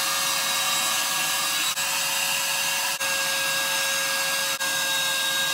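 Handheld hair dryer running steadily, a continuous rush of blown air with a steady hum, with three very brief dips in level.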